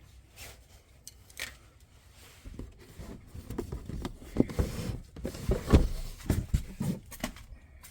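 Hard plastic clicks, knocks and clunks as a car's battery compartment cover is closed and trim is set back in place: a few light clicks at first, then a busier run of knocks and low thumps from a few seconds in.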